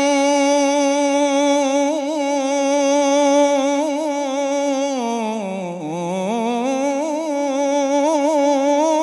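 A man's solo unaccompanied voice chanting an Arabic ibtihal, holding one long melismatic note with quick wavering ornaments. About five seconds in the pitch sinks low, then climbs back to the held note.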